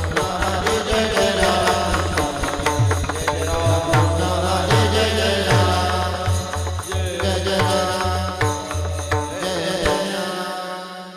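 Kirtan accompaniment music: a drum beats deep bass strokes that slide down in pitch, with sharp metallic strikes over sustained pitched tones. The music fades out near the end.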